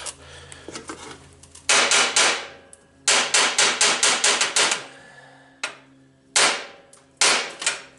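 Hammer striking metal in quick runs of blows, several in a row, then single hits, working loose a rusted, seized part on a motorcycle's rear wheel.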